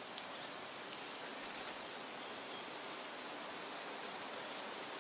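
Faint, steady outdoor forest ambience: an even hiss like air moving through trees, with a few tiny high chirps near the start and near the end.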